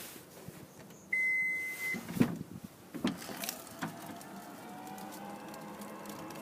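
A single electronic beep about a second in, then a couple of clunks. After that comes the steady whine of the 2017 Toyota Highlander's power back door motor raising the liftgate.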